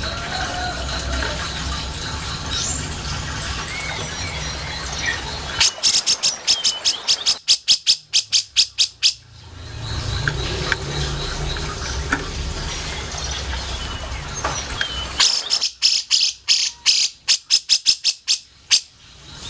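Grey-cheeked bulbul (cucak jenggot) singing in two loud bouts of rapid, sharp repeated notes, about six a second, each lasting three to four seconds. Between the bouts there are faint chirps over a low steady hum.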